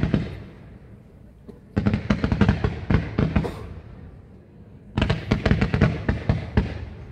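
Fireworks fired from the ground, throwing coloured stars out in a fan, go off in two volleys of rapid shots, several a second. Each volley lasts about a second and a half, the first about two seconds in and the second about five seconds in, and each echoes away after it.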